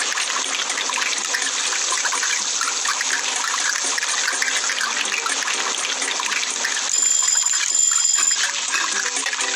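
A steady hissing noise, like running water or frying. About seven seconds in, a high steady tone sounds in two parts with a short break.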